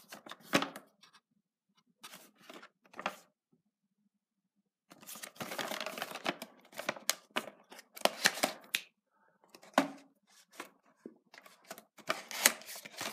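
Cardboard model-car box and its clear plastic insert being handled and opened: scattered clicks, scrapes and rustles, busiest in the middle and again near the end.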